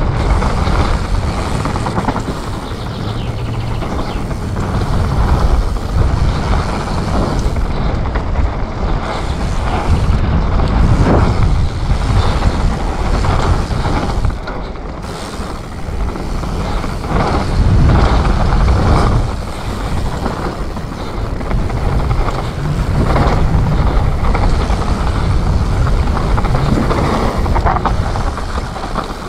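Commencal Supreme DH29 downhill mountain bike descending a trail at speed: a steady rush of wind on the camera's microphone and knobby tyres on dirt, with frequent knocks and rattles from the bike over bumps.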